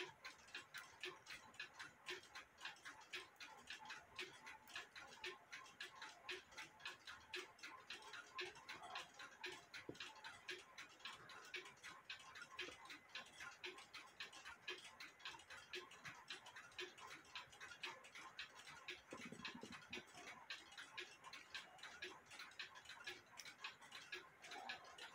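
Mechanical clock ticking faintly in a quick, steady rhythm, with a soft low handling bump about three-quarters of the way through.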